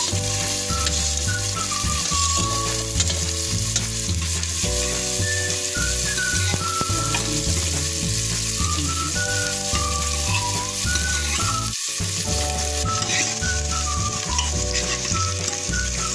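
Chopped onion and garlic sizzling and frying in hot oil with cumin in a pressure cooker, stirred with a ladle. Instrumental background music with a melody and bass line plays along, breaking off briefly about twelve seconds in.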